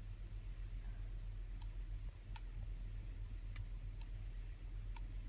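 Room tone: a low steady hum with about five faint, sharp clicks scattered through.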